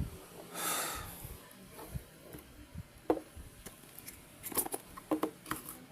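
Cube packaging being handled during unboxing: a brief rustle, then several light clicks and taps of plastic and cardboard.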